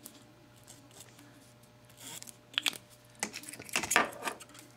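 A few brief rustling and scraping handling noises at a workbench, the loudest a cluster lasting about a second from roughly three seconds in, over a steady low hum.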